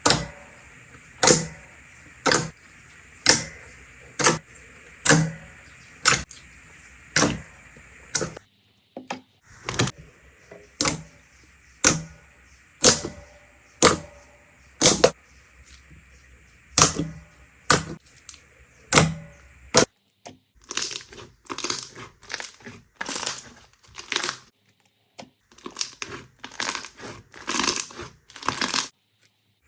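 Slime being pressed and played with, making sharp crackling pops about once a second. In the last third the pops turn into faster, denser crackling.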